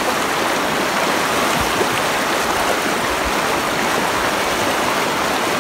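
Shallow river rushing over rocks: a steady, even rush of running water.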